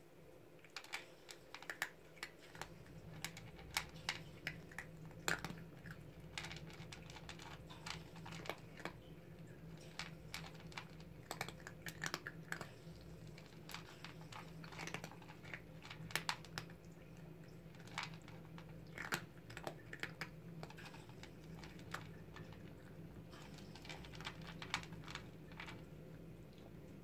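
Kittens eating dry kibble from a plastic bowl: quick, irregular crunching and clicking as they chew and pick up the pieces.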